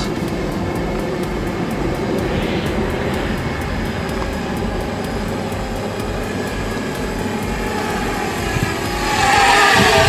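Parrot Bebop 2 quadcopter's propellers buzzing steadily as it flies in, growing louder with a rising whine near the end as it comes close overhead.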